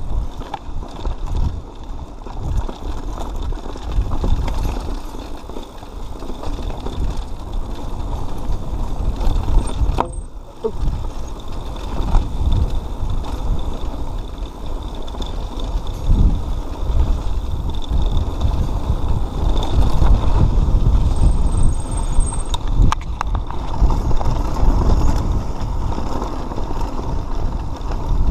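Mountain bike being ridden over a rough dirt singletrack: knobby tyres rumbling over the ground with knocks and rattles from the bike as it hits bumps and rocks, under wind buffeting on the camera microphone. The sound breaks off briefly about ten seconds in.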